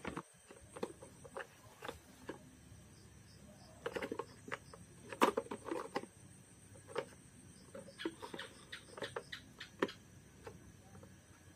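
Plastic toy cars being handled and knocked against each other in a cardboard box: scattered clicks and knocks, the loudest about five seconds in.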